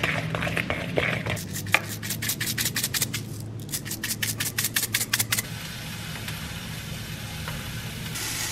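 Wooden spoon stirring thick pancake batter in a bowl: a quick, even scraping of about five strokes a second that stops about five seconds in. A steady hiss follows, growing brighter near the end as pancakes sizzle on a hot griddle.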